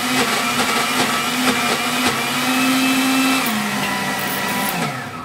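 Countertop blender motor running steadily while blending a thick chickpea hummus mix. Its pitch steps down about three and a half seconds in, and near the end the motor winds down with a falling pitch as it is switched off; the mix has stopped swirling freely.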